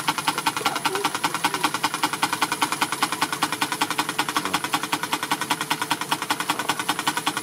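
Model Corliss-type steam engine with rotary valves running steadily, making rapid, even beats at roughly ten a second.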